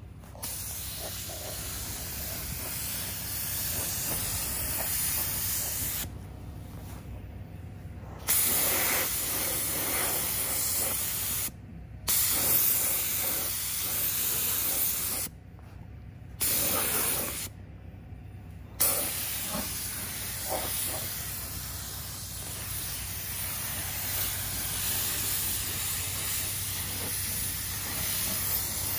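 Compressed-air paint spray gun hissing as it sprays paint in long passes. The trigger is let off four times, for a second or two at most, and the hiss stops and restarts sharply each time.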